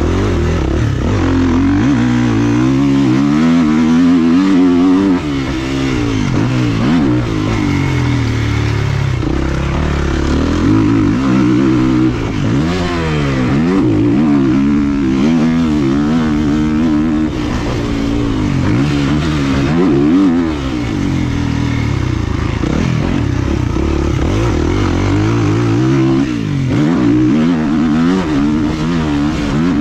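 Two-stroke motocross bike engine heard from a helmet-mounted camera, revving hard and falling back again and again as the rider works the throttle and shifts around the track, with short drops in level where the throttle is chopped.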